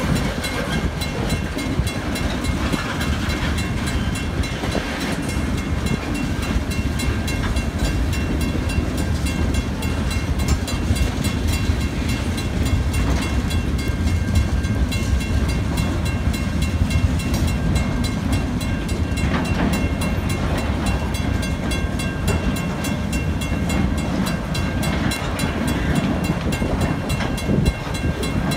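Freight train cars rolling steadily through a level crossing, a continuous low rumble with wheel clatter on the rails, and the crossing's warning bell ringing in quick, even strokes over it.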